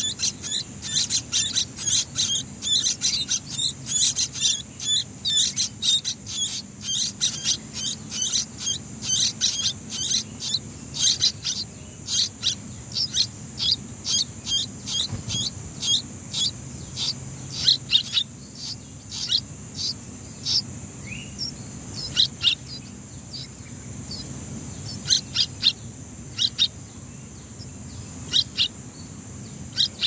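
Nestling songbirds begging for food: rapid short high-pitched chirps, several a second, thinning into sparser bursts after about twelve seconds. A faint steady high hiss runs underneath.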